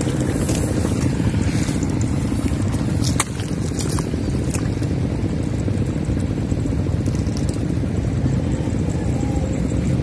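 Steady low rumbling noise with a few faint clicks.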